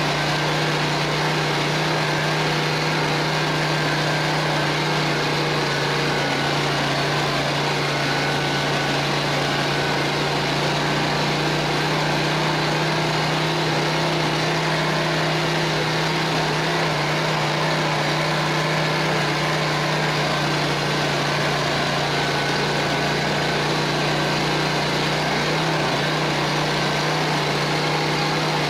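Engine of a homemade all-terrain vehicle running at a steady pitch as it drives over snow, heard from the driver's seat.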